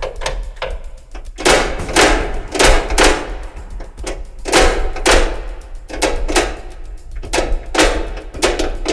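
Metal levers and linkage on a vintage garden tractor worked by hand with the engine off: a run of irregular clunks and rattles, about two a second, each with a short metallic ring.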